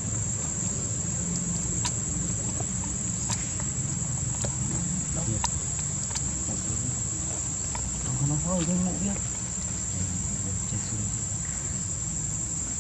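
Steady, high-pitched insect drone, with a few faint clicks and a short pitched call about eight seconds in.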